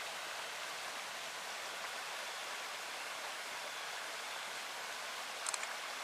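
Creek water rushing over a small dam, a steady even rush. A couple of short clicks sound about five and a half seconds in.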